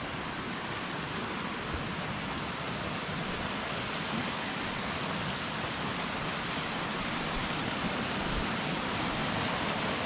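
Steady rush of a waterfall and river running over rock slabs, growing slowly louder.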